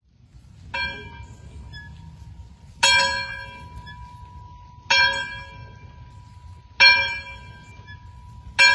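Church bell tolling: five strikes about two seconds apart, each ringing on until the next. The first strike is softer than the rest, and a steady low rumble lies underneath.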